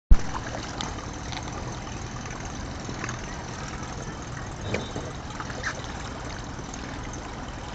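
Small motorboat engine running steadily at low speed with a low hum, over water noise, with a sharp click at the very start and a few faint knocks.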